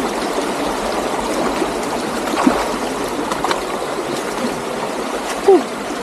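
Forest stream flowing over rocks, a steady rush of water. A brief falling tone cuts in once about five and a half seconds in.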